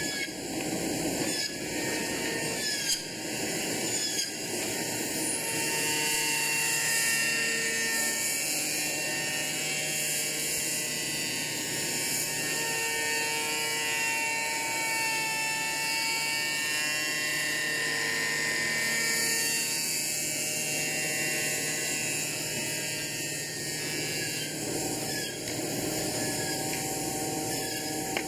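Power-tool and machine whine in a skateboard deck factory, running steadily, with high-pitched tones that swell and fade through the middle over constant machine noise.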